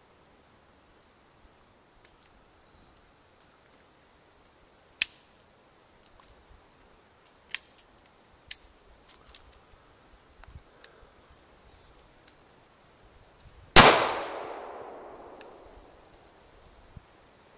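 A single loud gunshot about fourteen seconds in, its report ringing out and fading over about two seconds. A sharper, shorter crack comes about five seconds in, and a few faint clicks and knocks fall between them.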